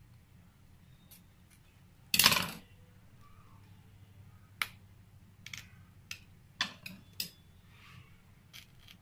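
Scissors snipping away the leftover screen-printing mesh cloth along the frame edge: a single louder, rasping cut about two seconds in, then a series of short, sharp snips and clicks.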